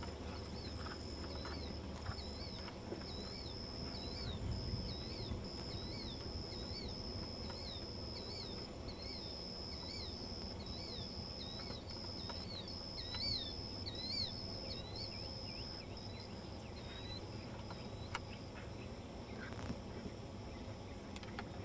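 Outdoor rural ambience: a bird calling over and over in short hooked chirps, with an insect's high pulsing buzz that stops about eighteen seconds in. A couple of faint hoof thuds sound near the end.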